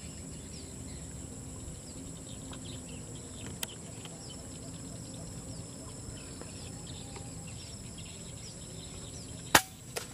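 Steady chorus of crickets and other insects. Near the end comes one sharp crack of an air-rifle shot, followed about half a second later by a fainter click.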